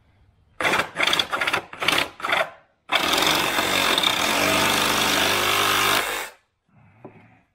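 Cordless reciprocating saw cutting a foam fairing block: a handful of short bursts in the first couple of seconds, then one steady cut of about three seconds that stops abruptly.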